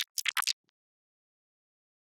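A quick cluster of four or five faint, sharp ticks within the first half second, then silence.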